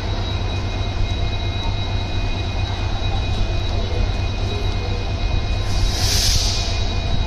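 WDP-4D diesel locomotive's EMD two-stroke V16 engine idling with a steady low rumble and a thin, steady high tone over it. A short hiss comes about six seconds in.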